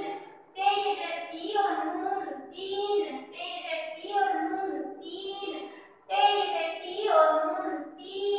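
A high-pitched voice reading Urdu words aloud in a sing-song chant, word after word, with short pauses between groups.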